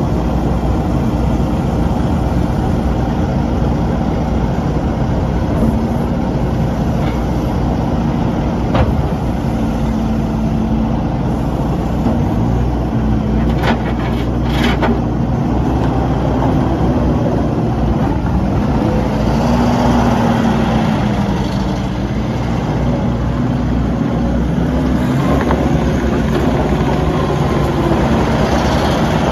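Kubota SVL75-2 compact track loader's 68.8 HP Kubota diesel engine running steadily. Its pitch shifts briefly around twenty seconds in, and there are a few short clicks or knocks about nine and fourteen seconds in.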